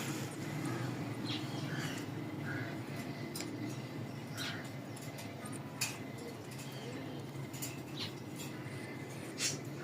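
Pet African grey parrot making scattered short clicks and small chirps, roughly one every second or so.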